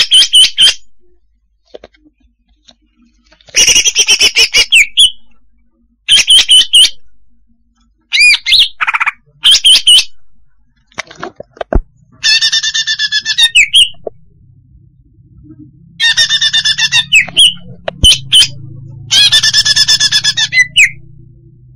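Female greater green leafbird (cucak hijau) calling: a string of short phrases of rapid, chattering high notes, about eight phrases each a second or so long, with pauses between. This is the female's call played as a lure to draw in leafbirds.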